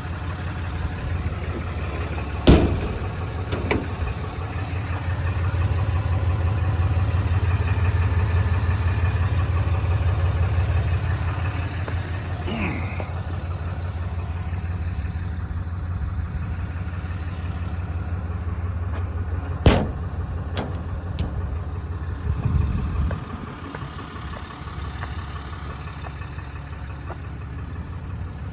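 Diesel truck engine idling with a steady low drone that grows louder for a while, then drops off about three quarters of the way through. Two sharp clacks cut through it, one about two and a half seconds in and another near twenty seconds.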